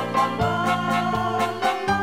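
Background instrumental music with a steady beat and a melody of held notes.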